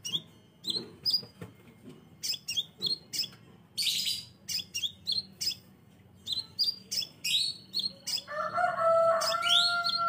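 Crimson sunbird giving rapid, sharp, high chirps in quick runs, with a short rasping burst about four seconds in. Near the end a lower, drawn-out pitched call joins in.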